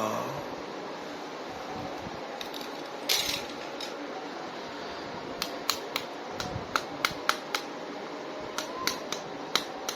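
Handling of a plastic action figure and its packaging: a short rustle about three seconds in, then a run of irregular sharp plastic clicks through the second half.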